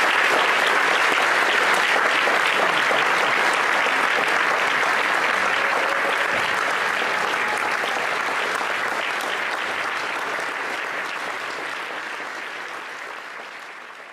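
Audience applauding, a dense steady clapping that fades out gradually over the last several seconds.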